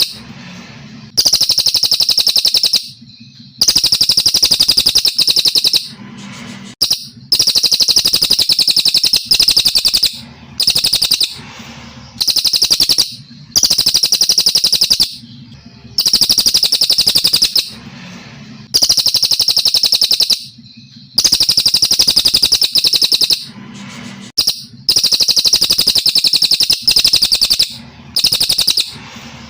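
Brown cililin songbird singing a long, clear song: a run of high phrases a second or two long, each followed by a short pause.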